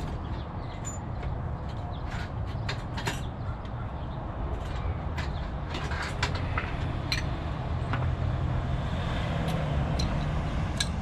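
Scattered sharp clicks and light clinks of tools and metal parts being handled, over a steady low rumble.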